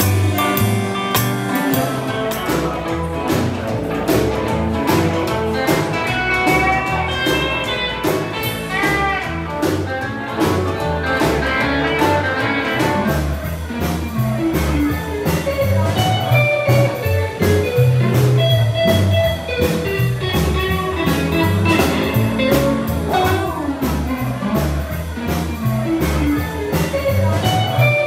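Bakersfield-style honky-tonk country music with guitar and a steady dance beat.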